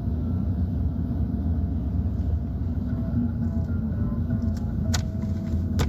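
Car engine and road noise heard inside the cabin while driving, a steady low rumble, with a few faint clicks near the end.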